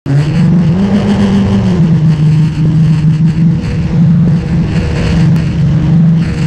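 Tow boat's engine running steadily at speed, with water rushing and splashing in the wake behind the stern.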